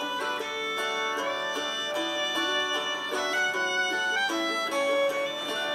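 Instrumental background music: a fiddle-led tune with plucked strings behind it, the melody moving between held and sliding notes.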